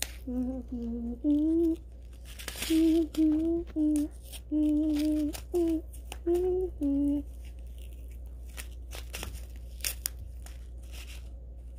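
A person humming a tune in short held notes for about seven seconds, with a tearing rustle about two and a half seconds in. Then scattered crinkling and clicking as plastic packets of Orbeez water beads are handled and torn open.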